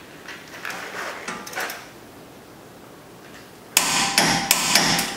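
Torque wrench being worked on a brake caliper bracket bolt as it is tightened toward 90 foot-pounds. Faint metal clicks at first, then, near the end, a sudden louder run of metallic clicks and clacks.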